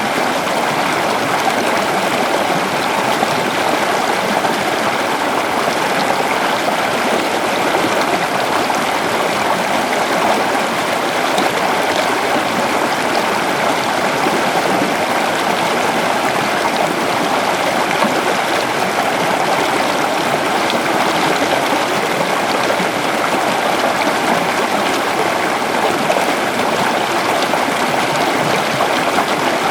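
Waterfall, water falling and splashing in a steady, continuous rush.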